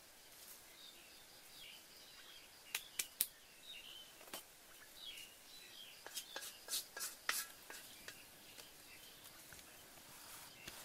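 Sharp, dry snaps and clicks from sticks at a small wood cooking fire, coming in clusters about three seconds in and again between six and seven and a half seconds, over faint bird chirps.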